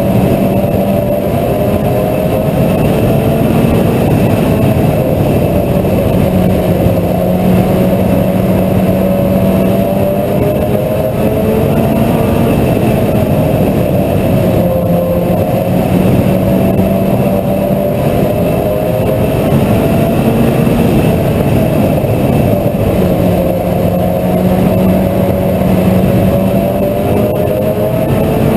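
Mini stock race car's four-cylinder engine running at race pace. Its pitch rises and falls repeatedly every several seconds as the car lifts and accelerates around the oval.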